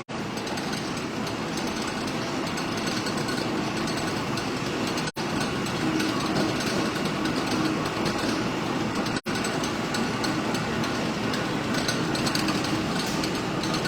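Steady running noise of forge-shop machinery, with no distinct hammer blows. It cuts out for an instant twice, about 5 and 9 seconds in.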